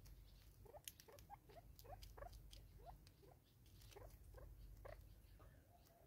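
Faint, short, rising bird calls repeated two or three times a second, with a few sharp clicks among them.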